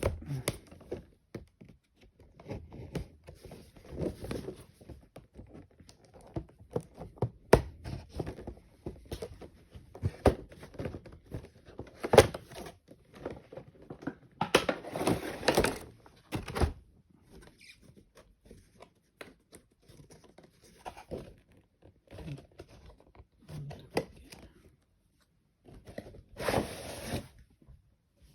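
An action figure's cardboard and plastic packaging being opened and handled: scattered knocks, taps and scrapes, with longer crinkling bursts about halfway through and again near the end.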